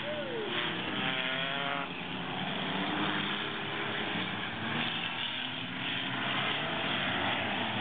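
Six-cylinder figure-8 race cars running on a dirt track. Their engine pitch rises and falls as they accelerate in the first couple of seconds, then settles into a steadier mixed drone of several engines.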